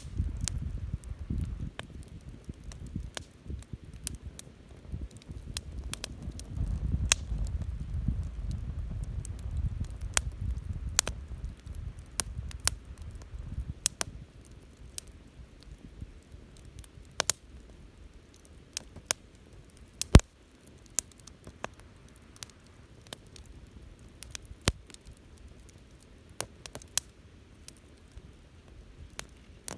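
Wood bonfire crackling, with sharp pops and snaps scattered throughout and the loudest snap about 20 seconds in. A low rumble runs under the first half and fades away after about 14 seconds.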